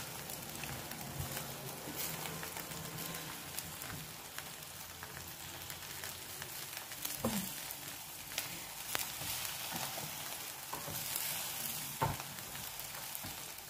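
Chicken pieces sizzling on the rack of an electric barbecue grill, a steady crackling hiss. A few sharp clicks of metal tongs against the grill are heard, the loudest near the end.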